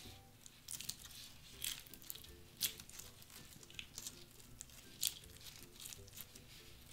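Stiff, cheap clear slime crackling and tearing as hands pull it apart: a string of sharp, sticky pops about once a second, the loudest about two and a half and five seconds in. The slime breaks instead of stretching. Soft background music runs underneath.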